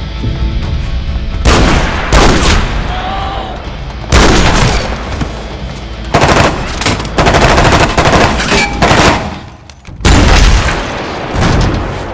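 Gunfire sound effects: repeated bursts of rapid automatic fire and single shots, coming in clusters from about a second and a half in, densest in the middle, over dramatic background music.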